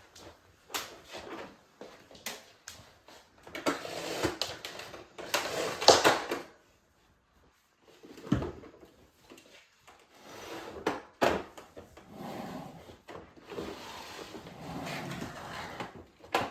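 Irregular clicks and knocks of objects being handled, with stretches of rattling between them.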